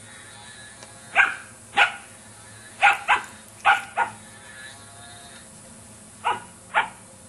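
Standard poodle puppy barking: eight short, sharp barks, mostly in quick pairs, with pauses between the pairs.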